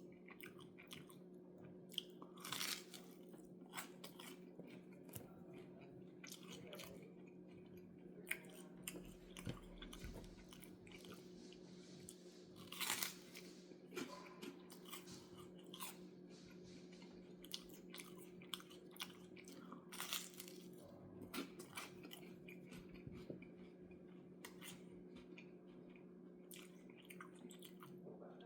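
Someone eating toast: quiet chewing with scattered crisp crunches and bites at irregular intervals, over a faint steady hum.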